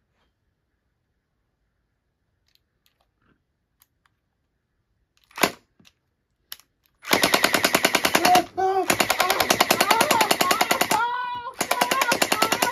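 Gel-ball blaster firing full-auto in long, rapid bursts at close range, starting about seven seconds in with two short breaks. Before it, near silence with a few faint clicks and one short knock.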